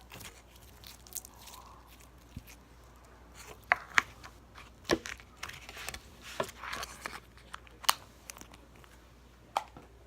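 Fruit slime, slime with little fruit pieces mixed in, being squished and stretched by hand: irregular crackling, popping clicks, sparse at first and busier from a few seconds in.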